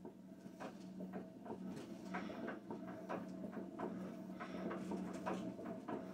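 Witte diesel engine being turned over by hand to prime its fuel system: irregular mechanical clicks and knocks over a steady low hum. The injection nozzle has not yet cracked, so air is still in the fuel line.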